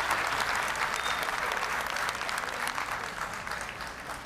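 Large arena audience applauding, the clapping gradually dying away toward the end.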